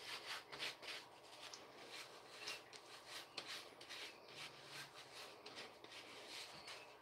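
Faint rhythmic rubbing or brushing strokes, about three a second.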